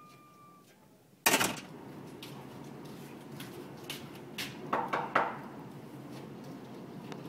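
A sudden loud thump about a second in, then a few sharp knocks on a wooden door a little after the middle, over a steady hiss.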